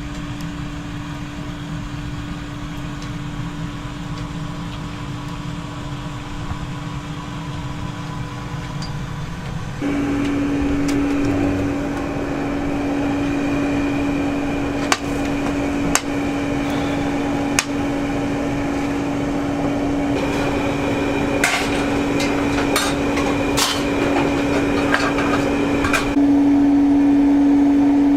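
Furnace air blower running with a steady hum that steps up in level about ten seconds in and again near the end. Sharp metallic clanks and knocks fall through the second half.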